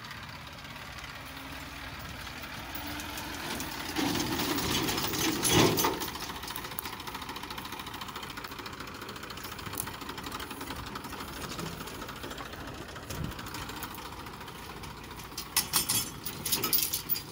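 New Holland tractor's diesel engine running as it pulls a trailer over rough dirt ground. The engine gets louder for a couple of seconds about four to six seconds in, and a burst of clattering knocks comes near the end.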